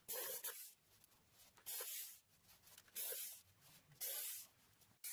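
Cordless drill-driver driving wood screws into plywood in four short bursts, about a second apart, with silence between them.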